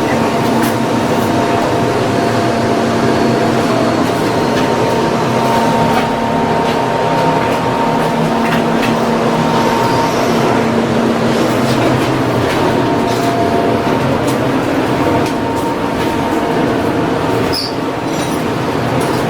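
Loud, steady industrial machinery noise with a droning hum and scattered clicks and knocks.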